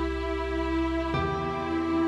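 Slow background music of sustained held chords, changing to a new chord about a second in.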